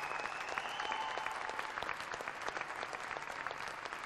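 Crowd and players applauding: many hands clapping at once in a dense, steady patter.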